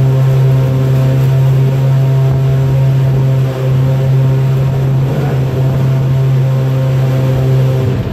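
A loud, steady mechanical drone: a low hum with several higher overtones that holds one unchanging pitch and cuts off abruptly near the end.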